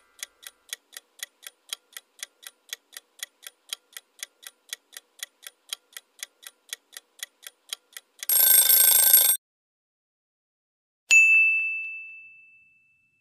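Countdown-timer sound effect ticking evenly, about four ticks a second, for about eight seconds. As time runs out it gives way to a loud, harsh alarm-like buzz lasting about a second. A couple of seconds later a single bell-like ding rings out and fades, marking the answer reveal.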